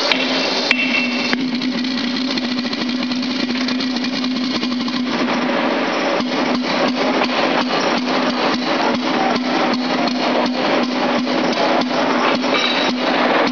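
A hammer taps a steel safety valve mounted on a pressurised test bench three times in the first second and a half, over a steady hissing noise with a low hum. From about five seconds in, a rapid, even clicking sets in at about three clicks a second.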